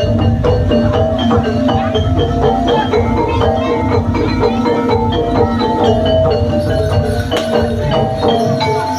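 Javanese gamelan playing jaranan accompaniment: a fast, steady stream of struck metallophone notes over drums.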